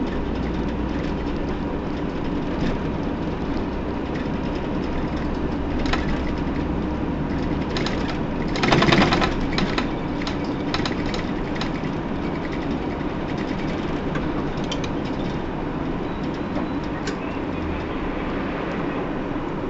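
Hino PDG-KV234N2 city bus heard from inside while running: steady engine drone and road noise with scattered rattling clicks. About nine seconds in there is a brief louder burst, the loudest moment.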